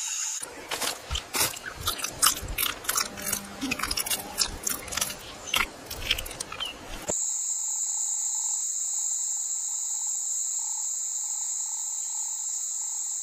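Crunchy chewing, a dense irregular run of bites and crackles, for about the first seven seconds. It stops suddenly and a steady high insect drone of a forest chorus takes over.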